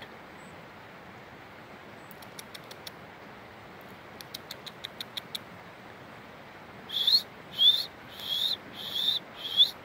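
Five short, high-pitched squeaky calls from an animal, each rising in pitch, about two every second, starting about seven seconds in. Before them comes a run of faint ticks over a steady hiss.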